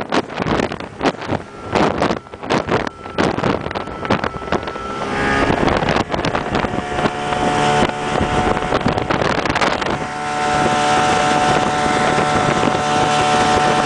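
Small motorboat running at speed over choppy water. For the first few seconds irregular thumps of the hull slapping the waves and wind buffeting the microphone are louder than anything else. After that the engine's steady drone takes over, louder from about ten seconds in.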